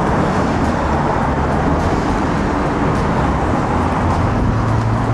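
Road traffic: motor vehicles running close by, a steady rumble. A low engine hum comes up about four seconds in.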